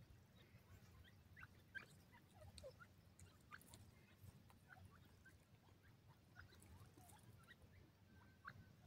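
Grey francolins giving many faint, short chirping calls, scattered irregularly, some notes sweeping up and some down, over a steady low rumble.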